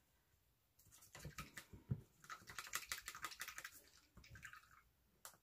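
A paintbrush being rinsed in a small plastic tub of water: a quick, irregular run of light clicks and rattles as the brush knocks against the tub for about four seconds, then one last click near the end.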